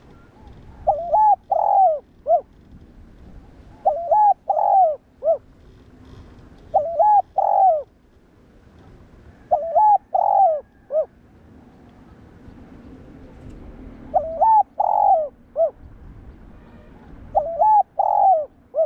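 Spotted dove cooing: six repeated phrases of three or four low, hooting notes, about one phrase every three seconds with a longer pause near the middle.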